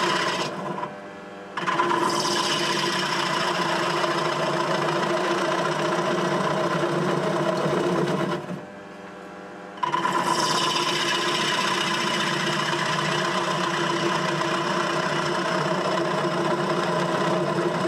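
Wood lathe spinning a bowl blank while a gouge hollows out its inside, giving a steady cutting sound over the machine's hum. The cutting stops twice, about a second in and again for about a second past the middle, as the tool comes off the wood, leaving only the quieter running lathe.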